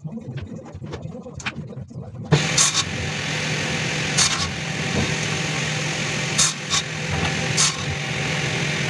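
Table saw switched on about two seconds in and running steadily with a low hum, with several short sharp peaks over it as a white-painted wooden frame is fed across the blade. Before it starts, only light knocks of wood being handled.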